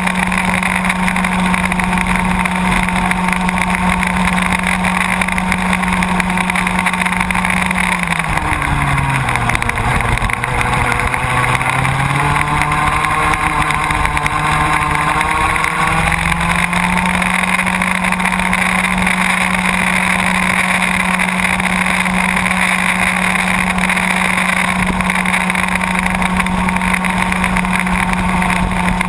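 Baby ROK go-kart's small two-stroke engine, heard on board, running hard at high revs. About eight seconds in its note drops as the kart slows for a tight bend, stays low through the corner, then climbs back as it accelerates out about sixteen seconds in and holds steady at full throttle.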